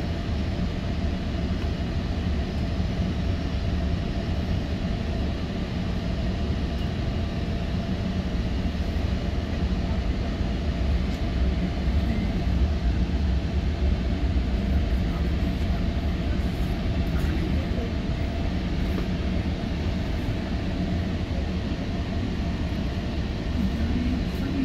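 Steady low rumble and hum of a GO Transit bilevel commuter train running on the rails, heard from inside the passenger coach.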